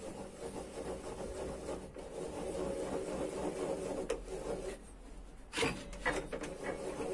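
A wooden board rubbing and sliding along a table saw's metal table and fence while the saw is not running, with a steady low hum underneath and a few short knocks about five and six seconds in.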